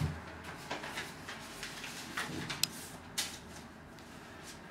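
Soft rustling with scattered small clicks and knocks as things are handled and rummaged through, with one sharper click about two and a half seconds in.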